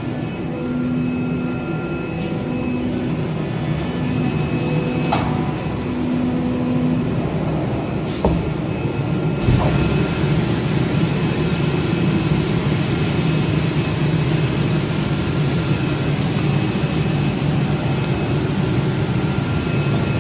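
A CNC vibrating-knife cutting machine running with a steady mechanical noise. A low hum pulses on and off about once a second for the first seven seconds, and a louder, fuller hiss comes in about nine and a half seconds in.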